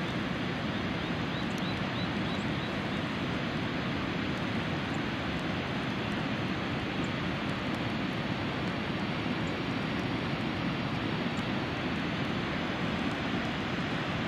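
Steady, unbroken rushing roar of a large waterfall across the lake flats.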